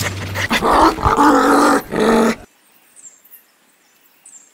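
A dog panting briefly, then a loud, drawn-out dog growl in two parts that cuts off suddenly about two and a half seconds in.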